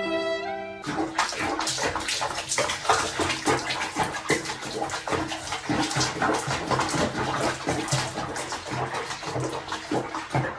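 Bath water splashing and sloshing around a cat sitting in a filled, foamy bathtub: a dense run of small splashes, starting about a second in.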